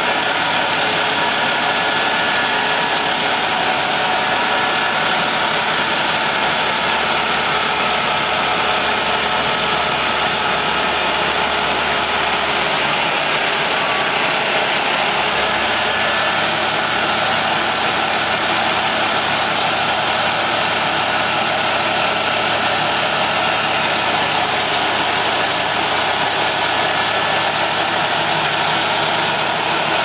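Homemade sawmill driven by an old golf cart's engine, running steadily and loudly without letting up.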